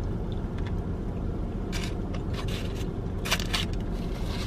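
Chewing a bite of a fried chicken sandwich, with several short, crisp crunching or rustling sounds in the second half, over a steady low rumble.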